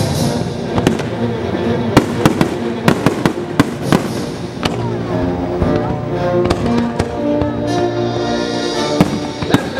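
Fireworks bursting in a fast, irregular string of sharp bangs, over the show's accompanying music with long held notes.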